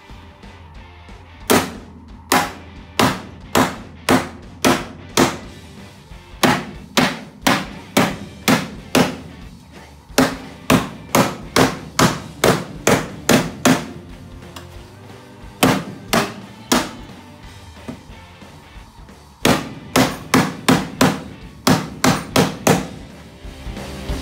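Hammer blows on sheet aluminium, forming it over a wooden buck used as a die for an aircraft engine cowling panel. The sharp strikes come in runs of about two a second, with short pauses between the runs.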